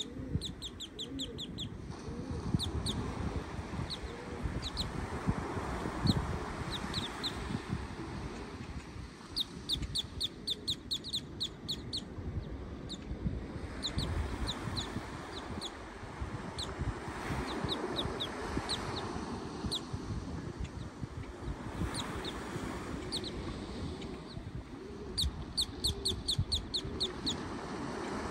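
A bird calling in several quick runs of sharp, high chirps, about five a second, each run a second or two long. Underneath runs a steady low rumble of surf and wind.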